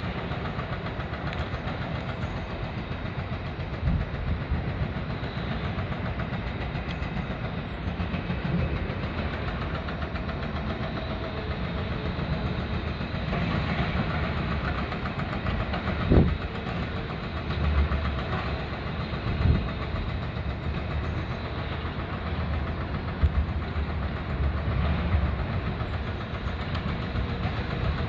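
Tracked excavators running steadily, with a low engine rumble and a few short heavy thuds.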